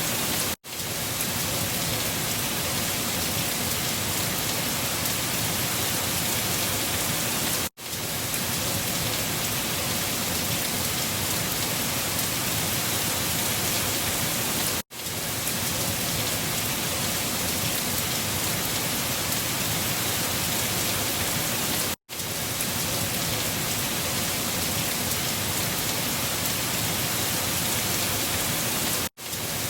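Steady, even hiss of wind-driven storm noise with rain. It cuts out for a split second about every seven seconds, five times, where a short looped recording restarts.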